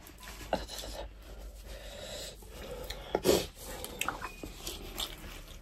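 Close-miked eating sounds: chewing and the soft rubbing of fingers working rice and fish by hand, with scattered small clicks. A louder short sniff comes a little past three seconds, as a tissue is wiped at the nose.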